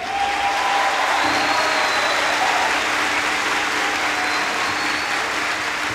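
A full theatre audience applauding steadily, welcoming the orchestra onto the stage.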